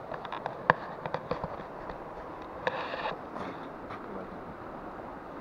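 Scattered crunching and clicking on snow-covered ice, like footsteps and handling of gear: a sharp click just under a second in and a short rasping scrape about three seconds in.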